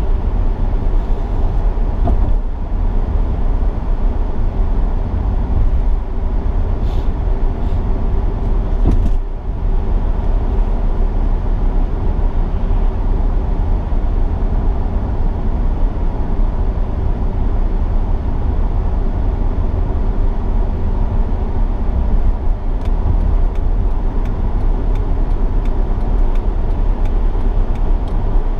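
Honda Accord driving, heard from inside the cabin: a steady low rumble of road and engine noise, with a brief drop in level about nine seconds in.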